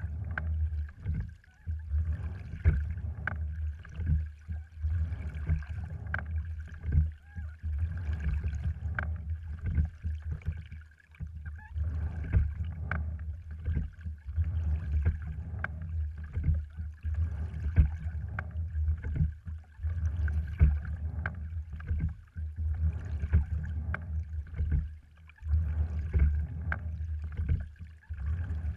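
A cedar-framed, cloth-covered sliding-seat rowing wherry under way: a steady low rumble of water along the hull, with sharp knocks and clicks from the oars and rowing rig every second or two as the strokes are pulled.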